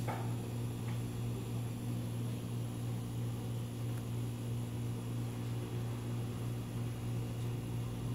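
A steady low machine hum with an even hiss underneath, unchanging throughout.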